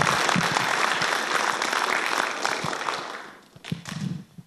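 Audience applauding after a talk, dying away about three seconds in.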